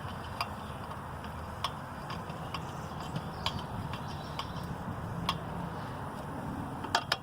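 Scattered light clicks and ticks of a hand tool driving down the screws on a small engine's top cover, at uneven intervals, with a few close together near the end, over a steady low background hum.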